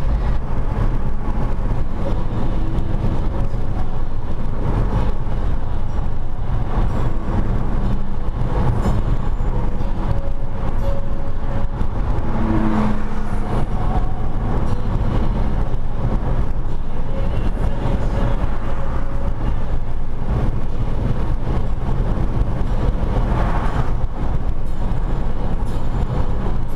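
Car driving at steady speed, heard from inside the cabin: a continuous low rumble of engine and tyres on the road.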